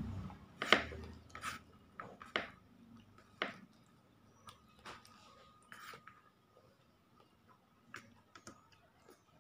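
Eating rice by hand: scattered sharp clicks and scrapes of fingers against the plate while mixing and scooping oily soy-sauce rice, with chewing and mouth sounds in between. The loudest click comes under a second in, and the sounds grow sparser and fainter later on.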